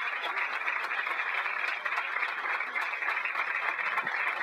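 Crowd applauding steadily, a dense even clapping.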